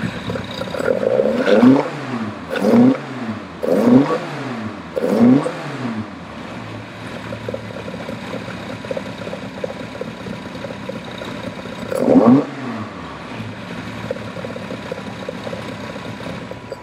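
Alfa Romeo twin-cam four-cylinder with twin sidedraft carburettors idling, blipped up and back down four times in quick succession in the first six seconds and once more about twelve seconds in. It is running on newly replaced intake manifold gaskets, with no whistle or chirp from an intake air leak.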